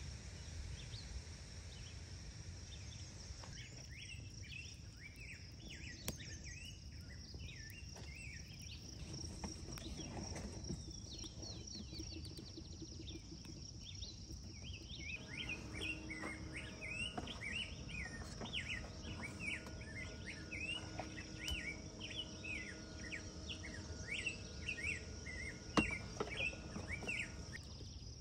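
Outdoor ambience of small birds chirping again and again over a steady high insect buzz, with a single sharp click near the end.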